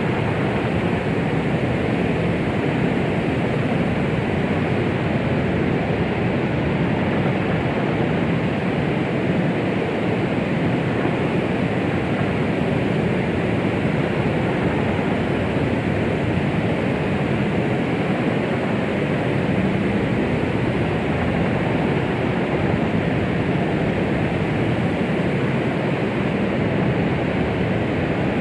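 Steady white-noise track meant to mimic the sound of the womb and soothe a baby: an even, unbroken hiss weighted toward the low and middle range, muffled above, with no rhythm or change.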